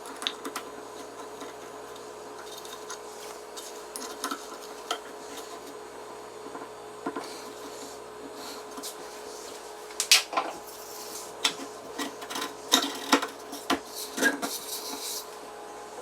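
Hand tools and small metal parts being handled during assembly: scattered clicks and light knocks, becoming a busier run of clattering knocks about two-thirds of the way in, over a steady faint hum.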